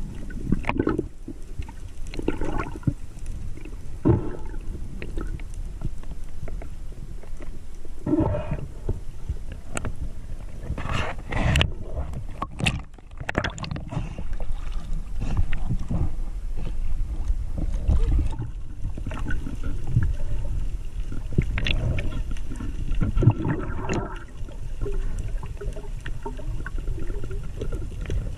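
Water rushing and gurgling around a spearfisher's camera as it moves under water and through the surface. A low, steady rumble runs under irregular splashy swells.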